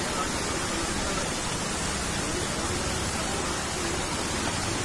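Heavy monsoon rain pouring down: a steady, dense hiss with no letup.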